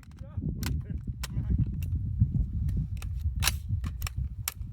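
AR-15 rifles firing about ten shots at an uneven pace, with dense low wind rumble on the microphone throughout.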